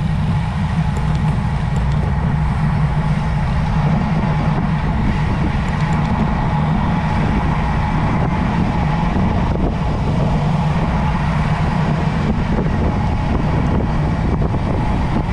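Steady rumble of wind and road noise while riding a road bike, with no distinct events.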